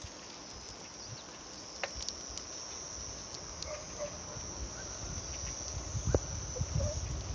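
Steady, high-pitched chorus of insects calling in the dry grass. A low rumble on the microphone grows in the second half, with a sharp knock about six seconds in.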